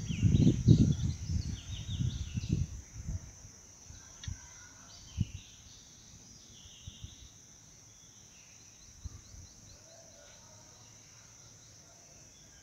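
Ambience of birds chirping over a steady high insect drone. Low rumbling sits under it for the first three seconds, and there are a few soft thumps later.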